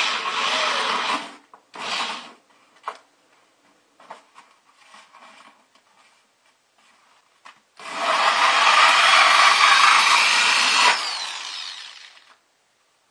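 Power drill cutting a roughly 2 1/8-inch hole through a bucket's inner liner, in runs. It cuts for about the first second, gives a short burst near two seconds, goes quiet apart from a few clicks, then cuts again from about eight to eleven seconds before winding down.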